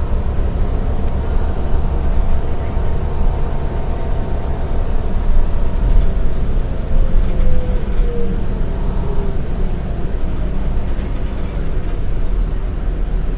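Cabin noise inside a New Flyer D40LF diesel transit bus under way: the Cummins ISL9 diesel engine and drivetrain run with a steady heavy rumble and road noise. A faint whine falls in pitch about seven to nine seconds in.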